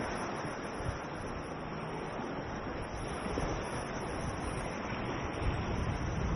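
Small waves washing against the rocks of a harbor jetty, with wind buffeting the microphone.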